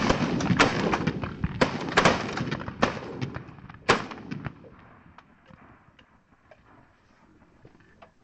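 A volley of shotgun shots from several hunters firing into a flock of pigeons, about six shots in the first four seconds. The firing then stops.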